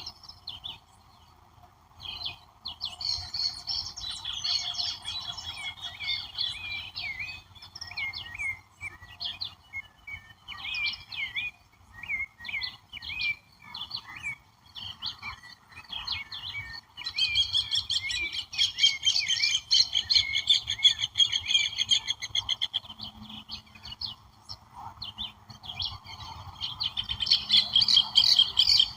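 Several birds singing at once: dense bursts of fast trills, with strings of short repeated chirps between them.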